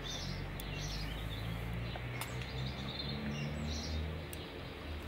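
Birds chirping in the background over a steady low hum, with a few faint clicks from hands working a small plastic thread-lock bottle against a metal fitting.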